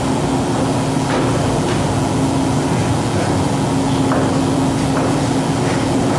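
Steady room hum with a faint low tone over a background hiss, broken by a few soft clicks or knocks.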